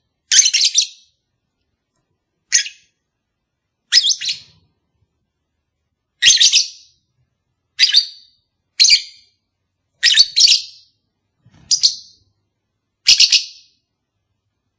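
Lovebird giving about ten short, shrill chirping calls at irregular gaps of a second or two, some in quick pairs.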